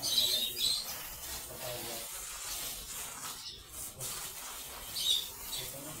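African lovebirds chirping and squawking, loudest right at the start and again about five seconds in, over a steady background hiss.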